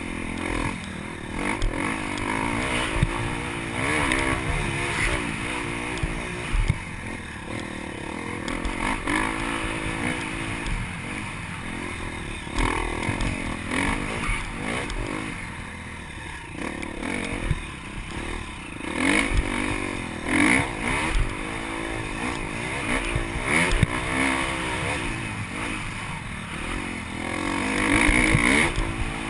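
Dirt bike engine heard from the rider's helmet, revving up and falling back over and over as the throttle is worked on a rough trail, with occasional sharp knocks from the bike over bumps.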